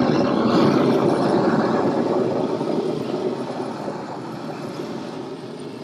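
Handheld propane roofing torch burning with a steady rushing flame as it heats a nailed metal drip edge, growing quieter over the last few seconds.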